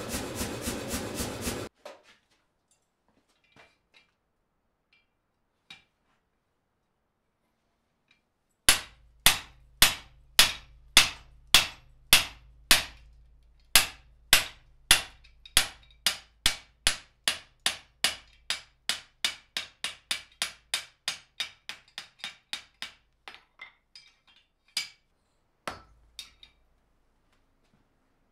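A power hammer pounding hot steel in quick, even blows, about four to five a second, that stop after under two seconds. After a pause, a hand hammer strikes a guillotine tool on the anvil, steel on steel: slow, loud blows about half a second apart that quicken and grow fainter, with two or three separate strikes near the end.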